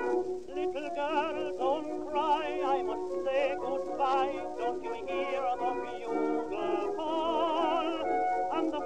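Tenor voice singing with wide vibrato over a small orchestra's accompaniment, coming in about half a second after the introduction ends, on an acoustic-era 78 rpm disc recording.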